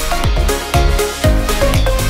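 Electronic background music with a steady kick-drum beat, about two beats a second, under held synth notes.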